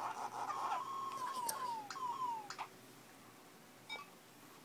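A chihuahua's heavy breathing through the nose: raspy at first, then a quick run of short falling whistles. It stops about two and a half seconds in, and a faint click follows.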